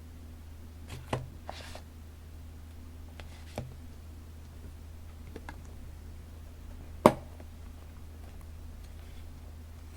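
Handling of paper journaling materials: a few brief paper rustles and light taps, with one sharp tap about seven seconds in as the loudest sound, over a steady low background hum.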